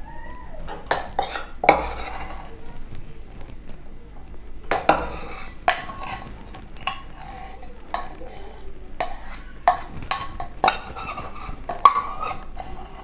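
Metal spoon scraping and clinking against a glass, scooping out a pounded herb paste, in irregular taps with a short ring after each.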